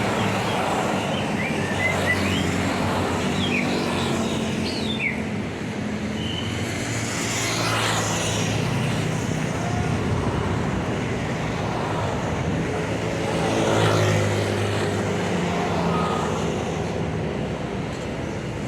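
Tour bus diesel engine running as the bus pulls out onto the road, a steady low hum with a louder swell about fourteen seconds in.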